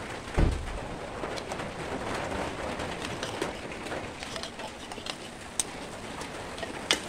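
Spaghetti meat sauce simmering in a pot, a steady soft crackle, with a dull bump about half a second in and two sharp clicks near the end.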